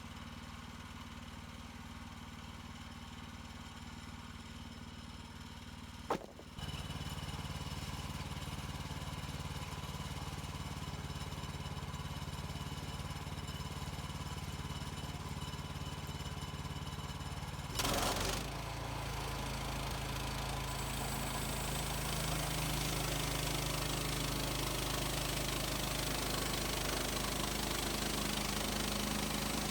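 HM130 Max portable band sawmill's gas engine running steadily. A sharp click about six seconds in, after which it runs louder; a short burst about eighteen seconds in, after which the sound grows fuller and louder, with more hiss on top.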